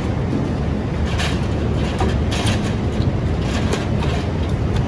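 A heavy truck engine running steadily with a dense low rumble, with several short sharp noises over it, roughly a second apart.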